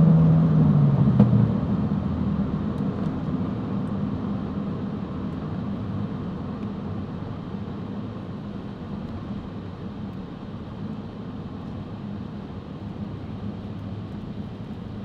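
Road and wind noise inside a moving car, with the engine note dropping in pitch and dying away about a second in. The rumble then fades steadily as the car slows.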